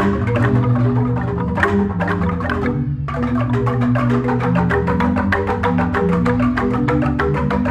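Balinese jegog gamelan of bamboo-tube xylophones playing fast interlocking mallet strokes over long, deep bass notes. The quick strokes drop out for a moment about three seconds in, then resume.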